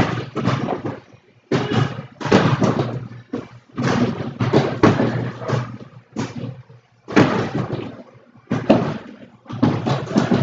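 Repeated thuds and slaps of strikes landing on heavy punching bags, coming in bursts of about a second with short pauses between them.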